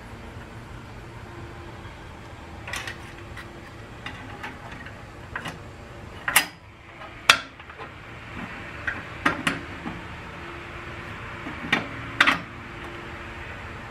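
Metal parts clicking and clanking against a 47RE transmission case as the front servo and its spring are worked into the servo bore: a scatter of sharp knocks, the loudest two about a second apart near the middle, over a steady low hum.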